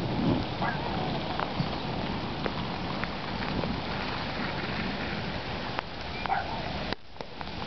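Steady hiss of rain falling, with scattered single drops ticking close by. The hiss drops away for a moment about seven seconds in.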